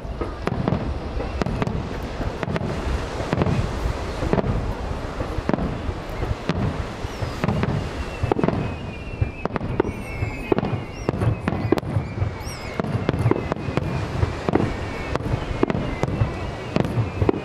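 A fireworks display: aerial shells bursting one after another in a continuous run of booms and crackles. Faint high whistles glide slowly downward in the second half.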